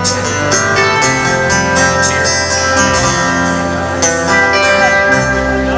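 Instrumental passage of a country song between sung lines: guitar playing over a steady drum beat.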